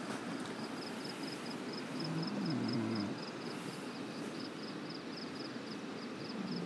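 An insect chirping steadily in quick high pulses, about four a second, over a steady background rush. Faint voices come in about two to three seconds in.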